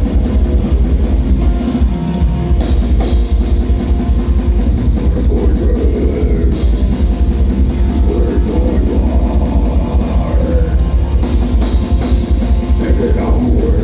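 A death metal band playing live: a drum kit driving with fast, dense bass-drum strokes and cymbals under low, sustained guitar chords.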